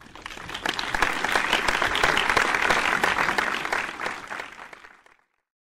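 Audience applauding: dense clapping that swells in over the first second, holds, then fades out about five seconds in.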